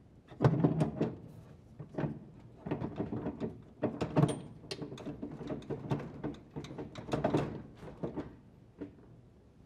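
Metal washer transmission assembly being turned and pressed by hand against the plastic outer tub to line up the shaft's spline gear and seat it: a run of irregular clicks, knocks and scraping that dies away near the end.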